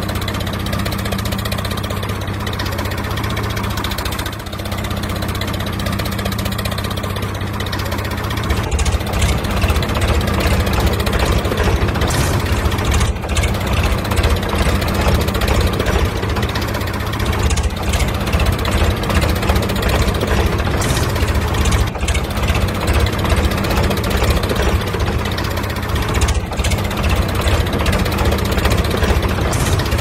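Tractor engine sound effect: a diesel-type engine running with a steady low chugging knock, turning louder and more pulsing about eight seconds in.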